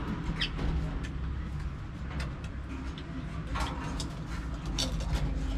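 Scattered light clicks and rattles of a baby monkey climbing a chain-link wire cage mesh, over a steady low background hum.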